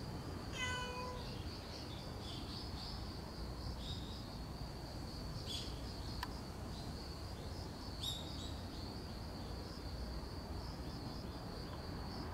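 Insects trilling steadily in a high, unbroken band, with one short pitched animal call about half a second in and a few brief bird-like chirps later on.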